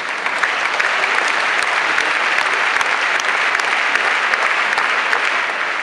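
Large stadium crowd applauding a point in a tennis match: many hands clapping, swelling at the start, holding steady, then starting to die away near the end.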